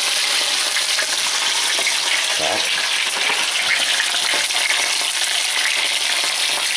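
Whole burbot frying in hot oil in a pan: a steady, loud sizzle thick with fine crackling.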